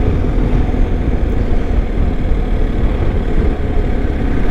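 BMW R1250's boxer-twin engine running steadily while the motorcycle is ridden along a road, with a low, even rumble mixed with wind and road noise.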